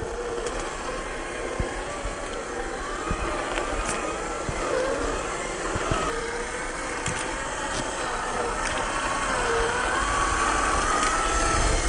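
Whine of a 1/10-scale RC rock crawler's 550 brushed electric motor and all-steel gears, its pitch wavering up and down as the throttle is worked. Scattered clicks and knocks of the crawler on rock come through over a steady rush of creek water.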